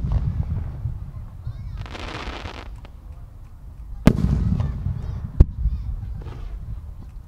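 Aerial firework shells bursting: a sharp bang right at the start and another about four seconds in, each followed by a low rumbling echo, with a shorter bang about five and a half seconds in. A stretch of hissing comes around two seconds in.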